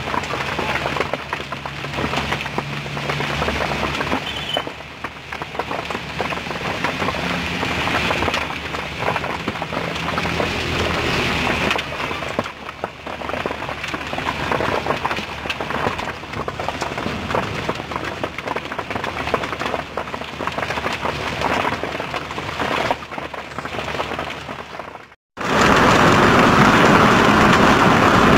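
Hail and rain falling on pavement: a dense, steady patter of many small impacts. About 25 s in it cuts out for a moment and returns louder and denser.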